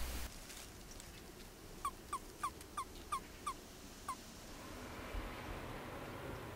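Seven short chirps at an even pace, about three a second, then stopping. This is the release call of a male Asian toad being clasped by another male.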